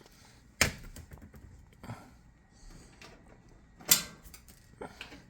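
Sharp clicks and knocks of a cordless drill and freshly removed screws being handled, with two louder knocks, one about half a second in and one near four seconds.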